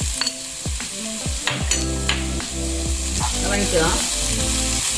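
Chopped vegetables and spice powders sizzling in hot oil and ghee in a pan, stirred with a spatula that clicks and scrapes against the pan several times.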